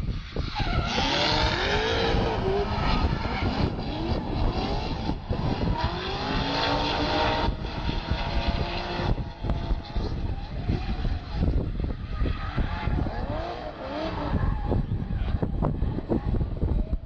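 Car engine revving up and down repeatedly with tyres squealing as a car drifts; the squeal is strongest in the first half.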